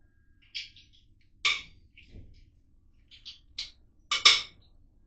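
Hand tools clinking and tapping on metal engine parts during a small-block V8 teardown: a handful of short, sharp metallic clicks at irregular intervals, the loudest about four seconds in.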